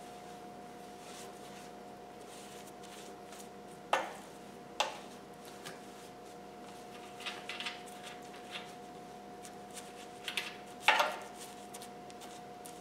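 Small clicks and clatter of a brush and a plastic tub being handled while soapy water is brushed onto a pressurised aluminium fuel tank to check for leaks. A couple of sharp knocks come about a third of the way in and a louder one near the end, over a faint steady hum.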